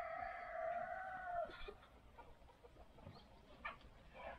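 A rooster crowing faintly, its long drawn-out final note held steady and ending about a second and a half in. A few faint ticks follow.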